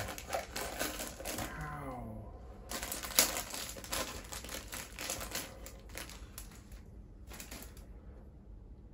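Close crackling and crunching of snack eating: a plastic wrapper crinkling and crisp food being chewed, in quick irregular clicks that thin out over the last few seconds. A short hummed vocal sound comes about a second and a half in.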